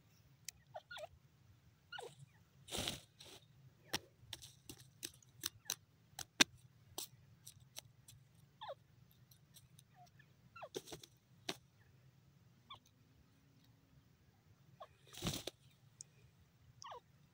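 Grey francolin pecking and scratching in sand: a scatter of faint clicks and crunches with a few short, faint squeaky notes. There are two louder scuffs, one about three seconds in and one near the end.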